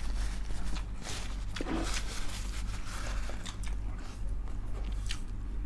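Close-miked eating sounds: soft, wet chewing and mouth clicks from people eating dinuguan (pork blood stew) and rice by hand, scattered small clicks over a low steady hum.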